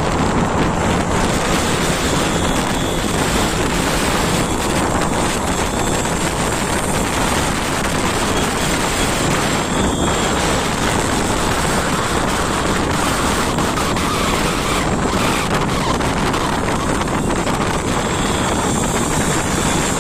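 Wind rushing over the microphone of a camera on a moving two-wheeler, with the engine and road noise of riding underneath; a steady, dense noise throughout.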